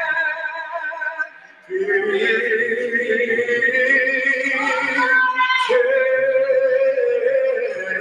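A man singing a gospel piece on stage, holding long notes with vibrato. There is a brief break after about a second and a half, and a voice slides upward in pitch about five seconds in before settling on another long held note.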